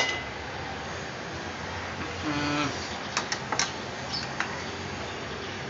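Metal spatula scraping and tapping against a frying pan while stirring a thick, dry gram-flour mixture, a few light clicks between about three and four and a half seconds in, over a steady low hiss.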